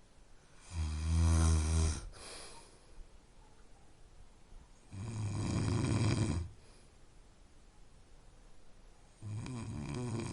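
Snoring: three snores about four seconds apart, each a low, pitched rumble lasting a second or so.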